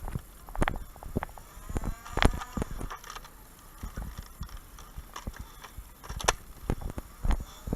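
Irregular plastic clicks and knocks from handling a Nerf blaster: foam darts being pushed into its magazine to top it off.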